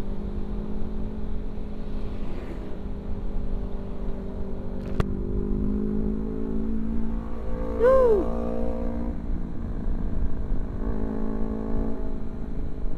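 Sport motorcycle engine running steadily while riding, under a low rumble of wind on the microphone. A single click about five seconds in, and a short tone that rises and falls in pitch about eight seconds in.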